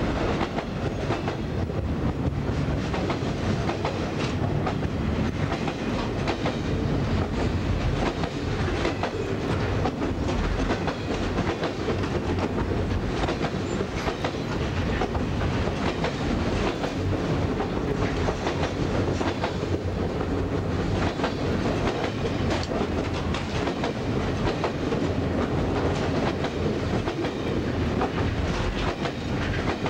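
Loaded freight flatcars rolling steadily past close by. The steel wheels clack over the rail joints on top of a continuous rumble.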